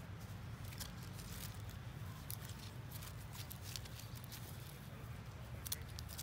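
Dry leaves and scuffling feet crackling in short scattered bursts as young long-tailed macaques wrestle, over a steady low rumble.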